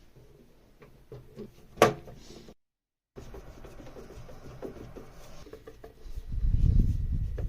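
Handling noises on a workbench: scattered light knocks and clicks, one sharp click about two seconds in, then a louder low rumbling handling noise near the end.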